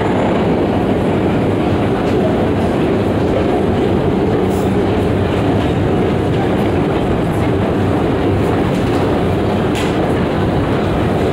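Metro escalator running with a steady, loud mechanical rumble and a few faint clicks, under the footsteps of a dense crowd of passengers.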